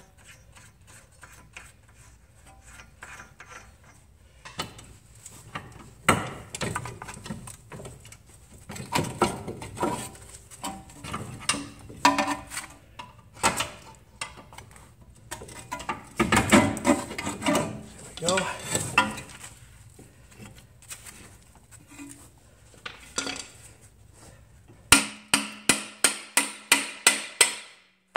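Steel hand tools and suspension parts clinking and knocking as a nut is undone and the steering knuckle is worked free, ending with a quick run of about ten sharp metal-on-metal strikes.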